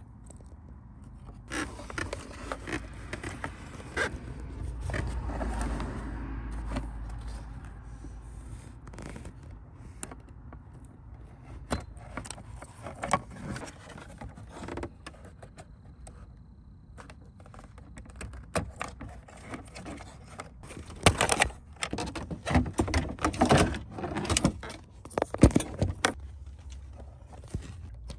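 Plastic dashboard trim and connectors of a Mercedes-Benz W166 ML350 being handled and pried with a small tool: irregular clicks, rattles and scrapes, busiest and loudest in the last third.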